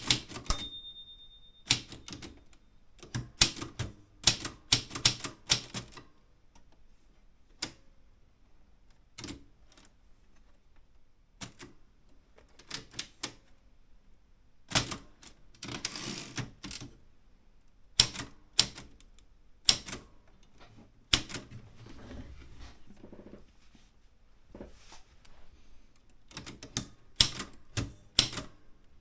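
Typewriter keys striking in uneven runs with short pauses between them, as text is typed. Just after the start there is a short ringing tone of about a second and a half.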